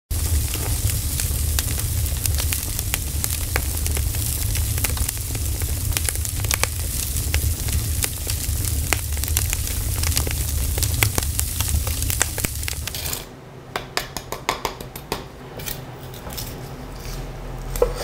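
Rack of lamb grilling over a wood fire: a steady sizzling hiss with frequent sharp crackles over a low rumble. About thirteen seconds in it drops to quieter scattered clicks and knocks.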